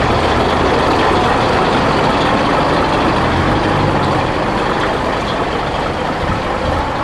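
Diesel engine of a vintage bonneted Scania truck running as the truck rolls past at low speed. Its steady low note shifts about halfway through, then loosens and drops a little as the truck moves away.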